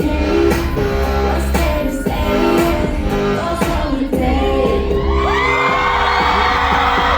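Live K-pop song played loud through a concert sound system, with electric guitar, heavy bass and a woman singing. About five seconds in, an audience screaming and cheering rises over the music.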